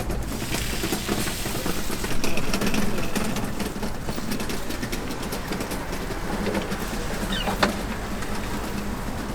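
Street background of steady traffic hum, with scattered clicks and knocks, louder for a moment about two seconds in, and one sharp click near the end.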